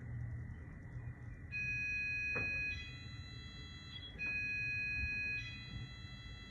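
Shop door entry chime sounding twice, each time a two-note electronic ding-dong with the second note quieter. It is set off by people walking past the shop door.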